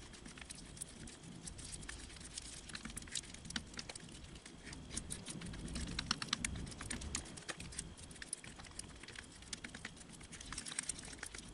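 Silicone spatula stirring a thick paste of baking soda, olive oil and sour cream in a small glass bowl: faint, irregular soft clicks and taps against the glass with a quiet squishing beneath.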